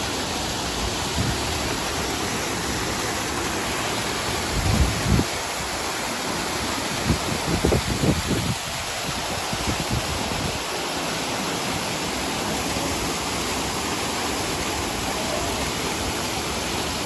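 Water pouring steadily over the ledges of an artificial concrete-rock waterfall into a pool, an even rushing sound, with a few brief low rumbles about five and eight seconds in.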